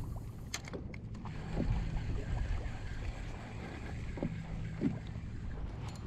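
Wind rumbling on the microphone and water lapping against a plastic fishing kayak's hull, with a few light knocks.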